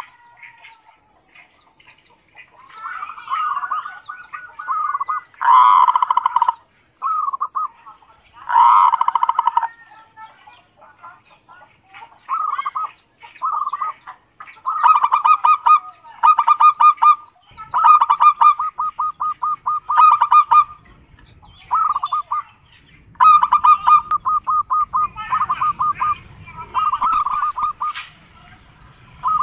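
Zebra dove (perkutut) calling over and over in short, fast-pulsed rattling coos, each phrase under a second with brief gaps between. This is the 'kerot' (ngerot) call type; two phrases, at about six and nine seconds in, are louder than the rest.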